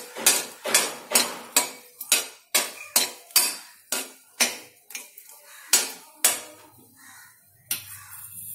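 Metal spatula stirring garlic cloves in a metal kadai, clinking against the pan about twice a second. The strikes thin out and stop about seven seconds in, leaving a faint low hum.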